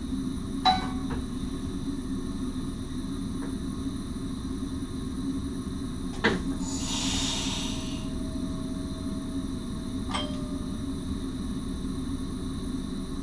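Inside the cab of a standing SGMM Sprinter electric train: a steady low hum of the train's equipment, broken by a few sharp clicks. One click about six seconds in is followed by a hiss lasting a second or two and a faint steady tone.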